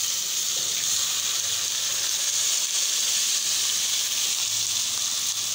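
Hot oil with onion, ginger and garlic sizzling steadily in a cooking pot as rice is tipped in from a bowl.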